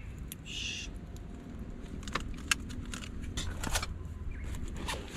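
Things being handled: a short crinkle about half a second in, then a run of sharp clicks and taps, over a steady low rumble of wind on the microphone.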